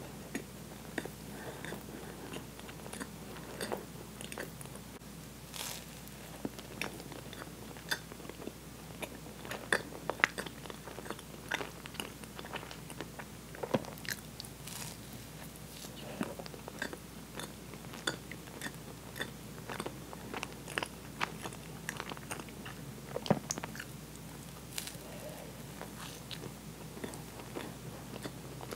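Close-miked chewing and mouth sounds of someone biting and eating a Twinkie, a soft cream-filled sponge cake, with many short clicks and smacks scattered throughout.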